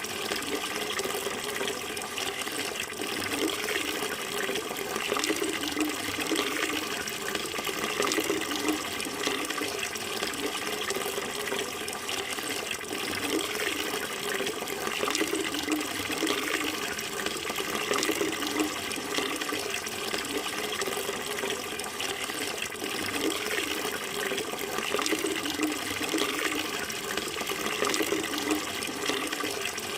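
Flowing water running steadily and without a break.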